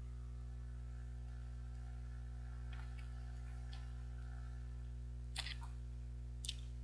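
Biting off and chewing a 21-grain chocolate bar: faint chewing with small clicks, then two sharp crunches about five and six and a half seconds in, over a steady low hum.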